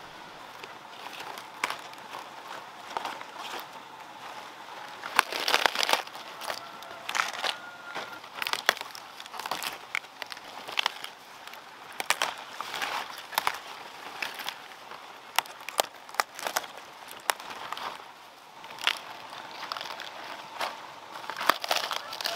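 Fresh cabbage leaves being snapped and torn off the heads by hand: irregular crisp cracks and crunches, with a denser cluster of crunching about five seconds in.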